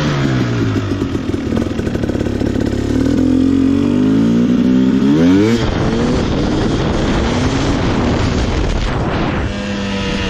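Two-stroke dirt bike engine running through a new FMF Fatty expansion chamber and Turbine Core II silencer, under throttle. The pitch falls briefly, then climbs steadily as the revs build to a peak about five and a half seconds in, then drops off suddenly to a rougher, lower running sound.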